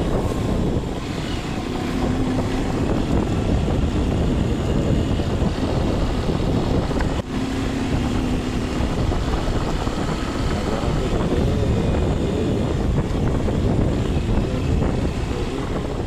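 Wind buffeting a motorcycle vlogger's microphone while riding: a steady, loud rumble with hiss over it, drowning out any engine or road sound.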